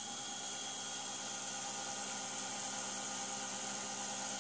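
CNC mini-mill spindle running at 8,000 rpm while a 3/8-inch four-flute carbide endmill side-mills the edge of a quarter-inch mild steel plate, a steady hissing whine.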